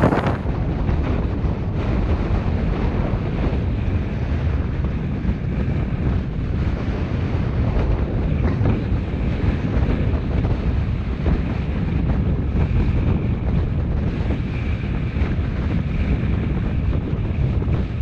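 Storm wind blowing hard and steadily, buffeting the microphone with a low rumble.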